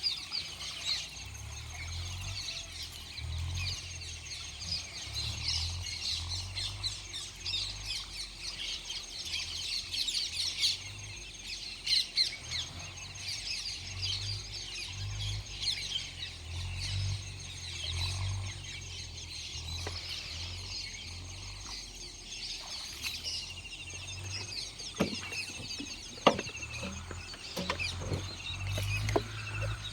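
Many birds chirping and calling, with short high chirps throughout over a low rumble. A few sharp knocks come in the last few seconds.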